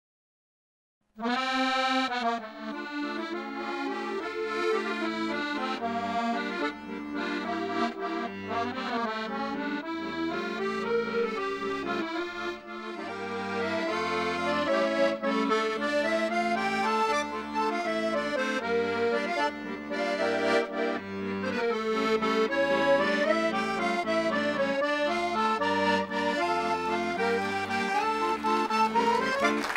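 Accordion music with a lively melody over a steady held low note, starting abruptly about a second in.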